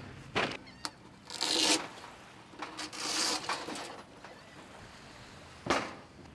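Camping gear being handled: knocks and bursts of scraping and rustling as a chest is moved, then a sharp knock near the end as a camp stove is set down on a plastic folding table.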